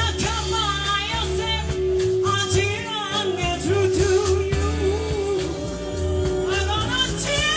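A live soul band playing, with a lead singer over bass, drums, guitars and keyboards.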